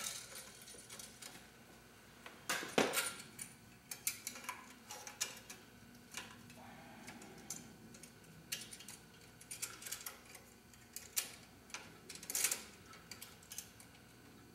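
Scattered metallic clicks and light knocks of a halon fire-extinguisher bottle and its metal clamp straps being handled and seated in a mounting bracket, with a louder knock about two and a half seconds in and another near the end.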